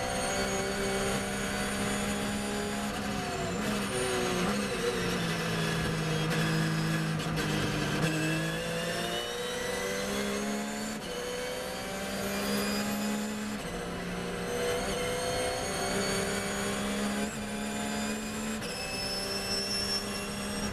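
In-car sound of a Porsche 911 GT3 R race car's flat-six engine. It slows under braking, its note falling through downshifts, then pulls hard through the gears, the note climbing and dropping back at each upshift.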